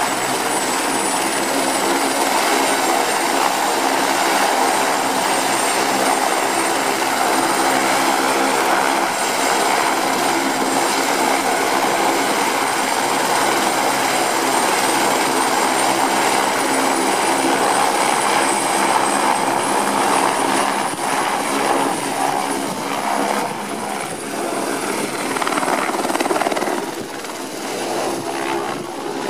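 Turbine helicopter running on the pad with its rotor at speed: a steady high turbine whine over a rotor drone. About two thirds through the whine rises slightly as power comes up, and near the end the sound turns uneven as the helicopter lifts off into a hover.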